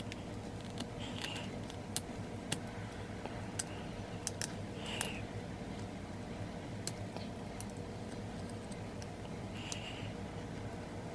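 Hobby knife carving and shaping the toes of a small sculpted figure's foot: scattered small clicks and short scrapes of the blade, over a steady low hum.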